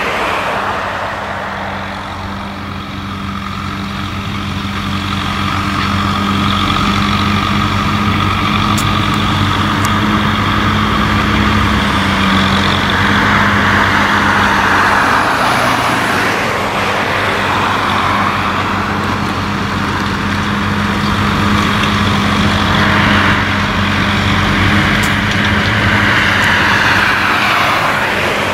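Tractor diesel engine running steadily with a side-mounted mulching mower working grass, a steady engine hum under a rushing noise that swells and fades several times.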